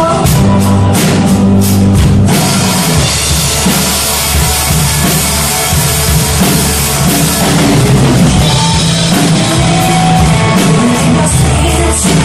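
Pearl drum kit played live along with band music: a run of separate sharp drum and cymbal hits in the first two seconds, then a steady full beat under the music.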